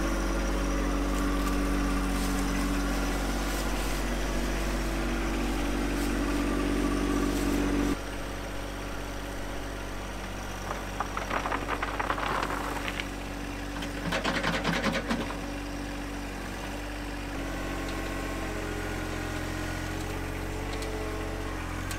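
John Deere 1025R sub-compact tractor's three-cylinder diesel engine running steadily, with two short bursts of clatter about halfway through.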